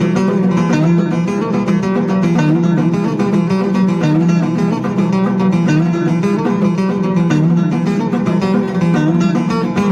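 Background music played on plucked, strummed acoustic guitar, steady and continuous.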